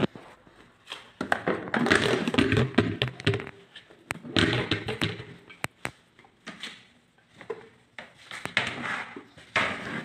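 Footsteps on tiled stairs with the rustle and knocks of a plastic laundry basket being carried: irregular shuffling noise broken by sharp taps and thuds.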